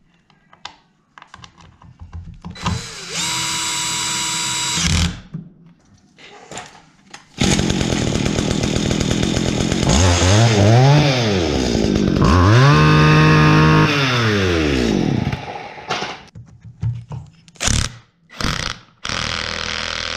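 A cordless drill runs briefly, then the STIHL FS80 trimmer's two-stroke engine bursts into life and runs, revved up and back down twice before it cuts off. Another short drill run comes near the end.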